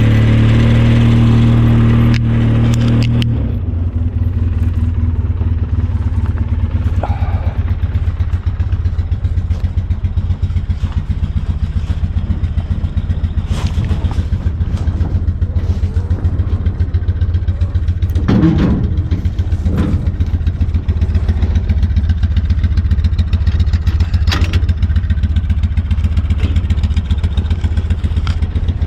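Four-wheeler (ATV) engine running, at a higher steady speed for the first three seconds and then dropping to a lower, fast-pulsing note for the rest. A few short clatters and knocks come in now and then over the engine.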